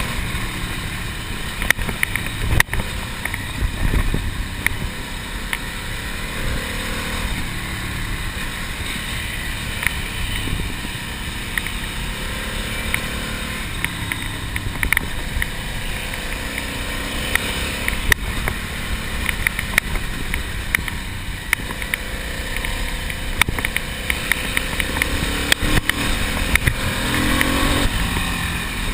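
Ducati Monster motorcycle's air-cooled L-twin engine running on the move, heard onboard with wind rushing over the microphone and many sharp clicks and knocks throughout.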